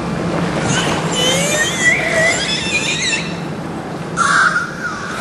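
Killer whale calling: a run of wavering, squealing whistles in the first three seconds, then a louder, lower wavering call about four seconds in.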